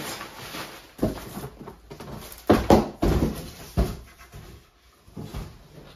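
Bubble-wrap packing rustling and crinkling as it is pulled out of a cardboard box, in several separate handfuls, loudest about halfway through, with a dull knock or two of handling.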